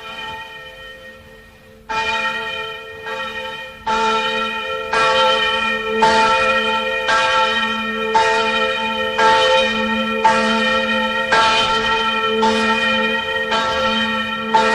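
Church bell tolling: a quiet start, then the same bell struck about once a second from about two seconds in, each stroke ringing on, louder after the first few strokes.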